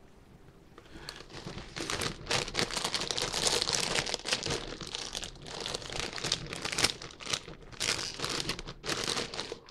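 A Lay's potato chip bag being crinkled and pulled open by hand: a dense crackling rustle of the plastic-foil bag that starts about a second in, with the loudest crackle a little before the end.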